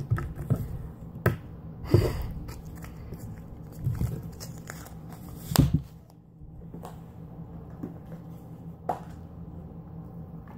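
Orange jiggly slime being squeezed and poked by hand: soft squishing with scattered sharp clicks and pops, the loudest a couple of seconds in and about halfway through.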